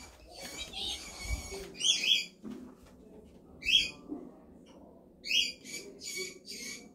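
Pet parrot calling: a series of short, high chirps and squawks, about six of them, with the loudest about two seconds in and near four seconds in.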